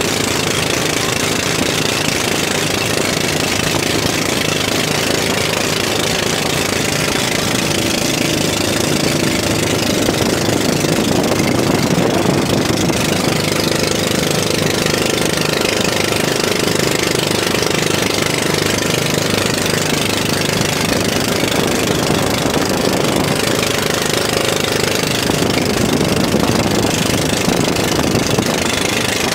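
Engine of a motorised bangka outrigger boat running steadily while the boat is under way at sea, a loud, even, continuous engine noise with no let-up.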